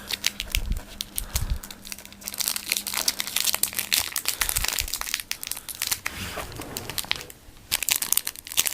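Foil Pokémon TCG booster pack wrapper crinkling in the hands as it is torn open, with a brief lull about seven seconds in.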